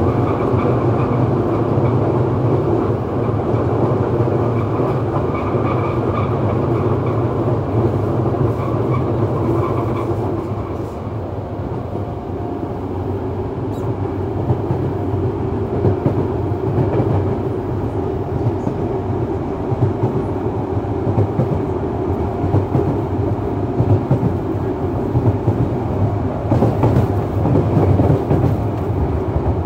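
Yokohama Municipal Subway 3000A train with Mitsubishi GTO-VVVF inverter drive, heard from inside the car while running: a steady rumble of wheels on rail. A thin steady whine runs through the first ten seconds or so. The sound eases off briefly about eleven seconds in, then returns with sharper clicks from the track.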